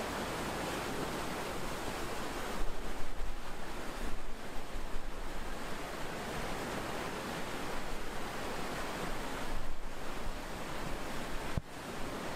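Churning white-water wake of a ship at sea, a steady rushing hiss of water, with wind buffeting the microphone in gusts a few seconds in and again near the end. A sharp click near the end, after which the water noise is quieter.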